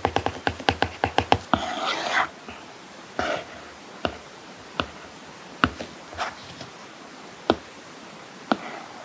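Apple Pencil tip on an iPad's paper-like matte screen protector: a quick run of taps about six a second as it writes, a short scratchy stroke about two seconds in, then single taps every second or so as items on the page are selected and moved.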